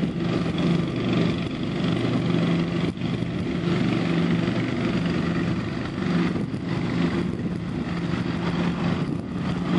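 Ride-on lawn tractor running steadily while mowing, its small engine humming at an even pitch under the whir of the cutting deck throwing out clippings.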